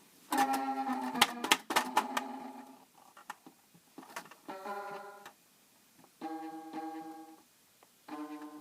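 An electronic keyboard being played: a quick cluster of struck notes in the first two seconds, then three chords each held for about a second, with short pauses between.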